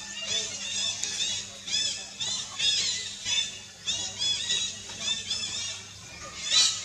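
Many short, high-pitched animal calls in quick succession, overlapping one another.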